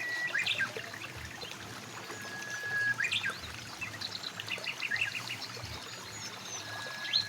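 Mountain river flowing with a steady rush of water, and birds calling over it: a few long held whistles and bursts of quick chirps.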